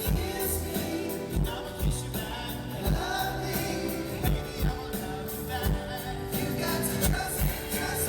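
Live pop band music with drums and singing.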